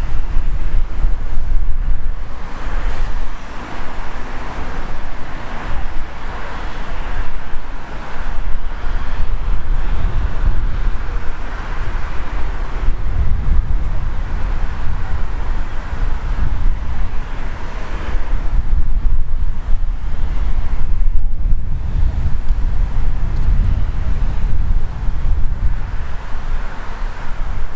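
Gusty wind buffeting the microphone, a loud low rumble that swells and drops, with a rushing hiss over it.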